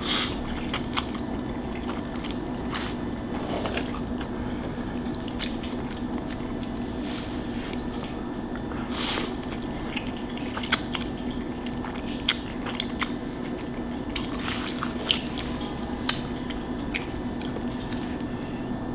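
Close-miked eating sounds: a person chewing food, with many short sharp mouth clicks and a longer noisy sound about nine seconds in, over a steady low hum.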